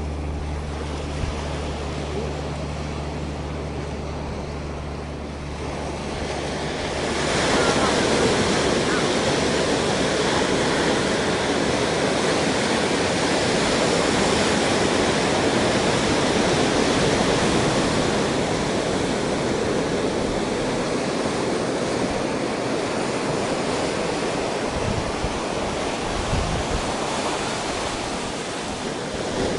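Ocean surf breaking and washing up over a rocky beach, a steady rushing that swells louder about seven seconds in. For the first seven seconds a low, steady engine hum sits underneath, then stops.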